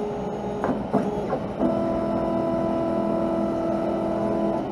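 Stepper motors of an OpenBuilds LEAD 1010 CNC router driving the machine, a steady multi-tone whine that shifts to a new pitch about one and a half seconds in, with a few clicks early on.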